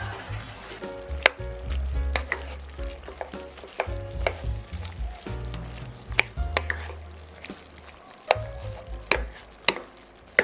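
Food frying and sizzling in a pan while it is stirred, with sharp irregular clicks of a utensil against the pan, over background music.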